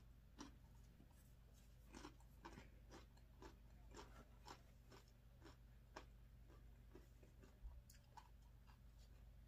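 Faint, irregular crunching of a tortilla chip being chewed.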